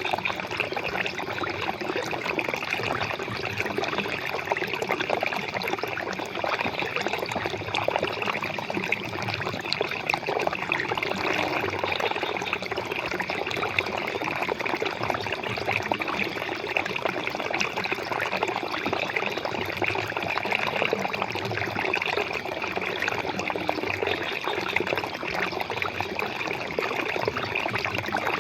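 Flowing water trickling and splashing steadily, an even rushing with fine flickering detail and no pauses.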